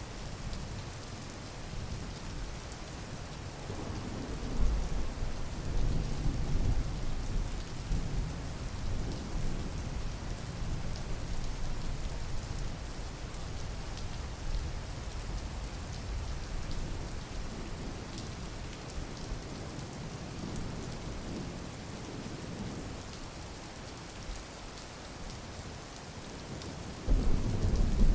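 Steady rain with many fine drop ticks. Low rolls of thunder swell in a few seconds in and fade, and a louder rumble begins near the end.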